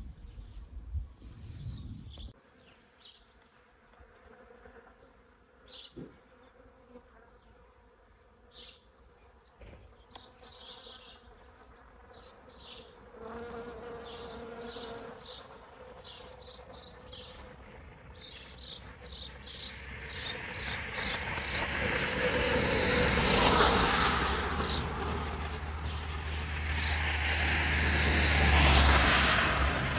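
A bee buzzing near the microphone, with short high chirps scattered throughout. In the second half a louder rushing swell with a low rumble builds up twice.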